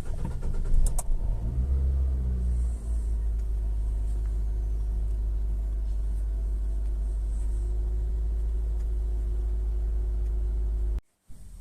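A 2014 Nissan Sentra B17's 1.8-litre four-cylinder engine cranks briefly and catches, runs at raised revs that fall away over the next couple of seconds, then settles to a steady idle. It is the start of an engine that the owner says starts roughly when cold. The sound cuts off suddenly near the end.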